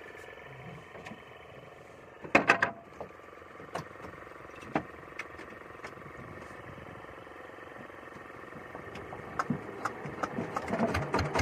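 A small boat's engine running steadily. A loud brief clatter comes about two seconds in, and scattered knocks and clicks build up near the end.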